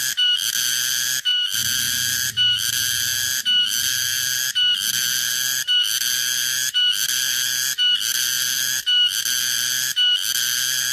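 Tonggeret (garengpung) cicada calling: a high, buzzing whine in even phrases about once a second. Each phrase opens with a short clear tone and ends in a brief break.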